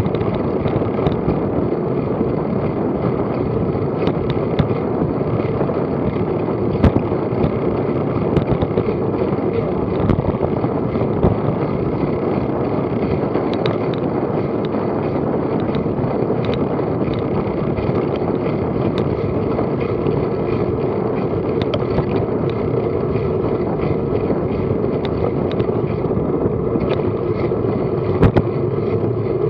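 Steady rush of wind on an action camera's microphone and tyre noise from a bicycle riding along a road at about 15–18 mph, with occasional small knocks from bumps in the road.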